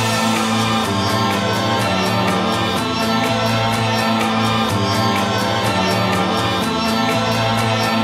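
Background music with singing voices over held chords and a steady beat.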